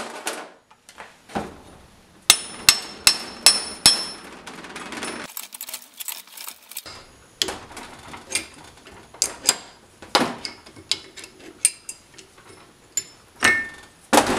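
Metal hand tools clinking and knocking against the steel flange of a car rear differential. A couple of seconds in comes a quick run of about six sharp, ringing metallic clinks. After that come scattered lighter clicks and clanks while a two-jaw gear puller is worked with a wrench to pull the flange off.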